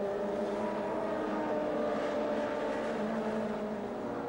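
Touring-car race engines running hard, several at once, with their pitch sinking slowly.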